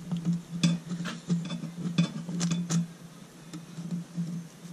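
Small metallic clicks and clinks as the oil filter cover of a Kawasaki KFX 450R engine is twisted and worked loose by hand, most of them in the first three seconds. A steady, pulsing low hum runs underneath.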